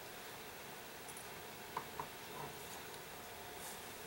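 A couple of faint, short clicks close together about two seconds in, then a soft rustle, from hands handling a brass clock movement.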